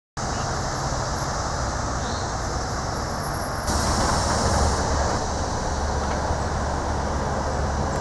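Steady outdoor background noise, an even rumbling hiss with no distinct events, stepping up a little in level about three and a half seconds in.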